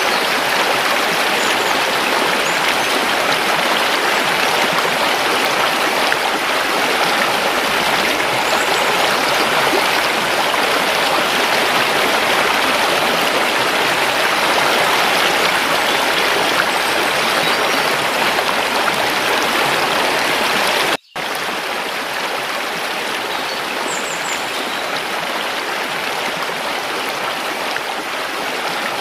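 Stream water rushing steadily, a dense even flow. It cuts out for a split second about two-thirds of the way through, then carries on slightly quieter.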